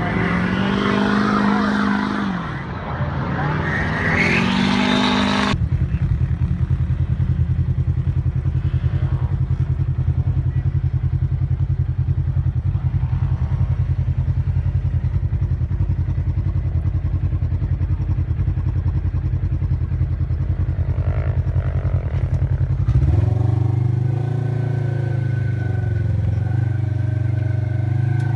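Vehicle engines revving up and down, rising sharply just before an abrupt cut. Then an engine idling with a steady low rumble, taken over about five seconds before the end by a higher, steady engine note with a faint whine.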